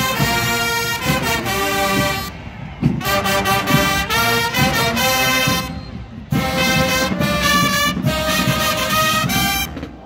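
Marching band brass section of trumpets, mellophones and trombones playing loud phrases together. The playing breaks off briefly twice and stops just before the end.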